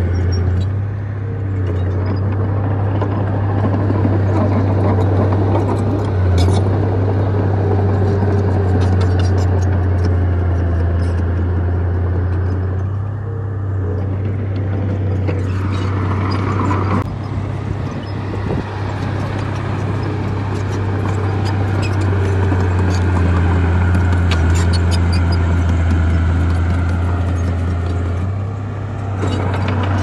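Small crawler bulldozer's diesel engine running steadily under load as it pushes dirt and rock, with frequent short clanks and scrapes over the low engine hum.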